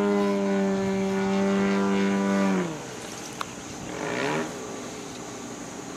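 Radio-controlled aerobatic airplane's motor and propeller running at a steady high pitch, then throttled back with a sharp drop in pitch a little under three seconds in, followed by a brief swell of power and back down around four seconds in.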